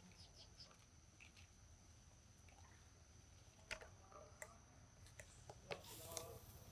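Near silence: faint scattered clicks over a faint steady high tone, with a brief rustle near the end.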